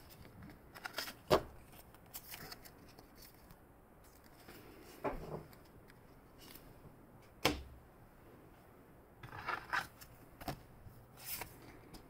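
Pokémon trading cards and their packs being handled: scattered soft rustles and light taps, with two sharp clicks, about a second in and again past the middle.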